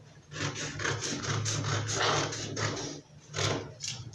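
Scissors cutting through a sheet of pattern paper along a curved line: a quick run of short crisp snips, a brief pause about three seconds in, then a few more snips.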